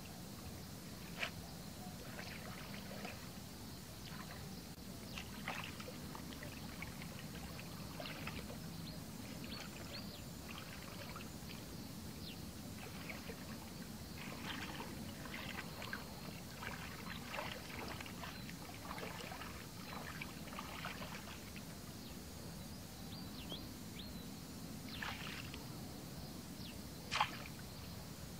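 Shallow muddy water splashing and sloshing in short irregular bursts as a person wades and works a bamboo plunge-basket fish trap down into it by hand, with a sharp tap about a second in and another near the end.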